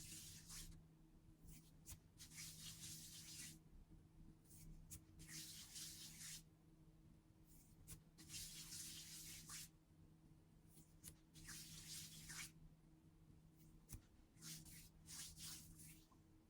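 Faint hissing swishes, each about a second long, recurring about every three seconds over a low steady hum.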